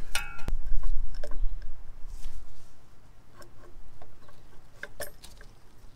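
Scattered light clicks and knocks of a metal thermostat housing being handled and fitted onto the engine by gloved hands, with a low rumble in the first two seconds that then fades.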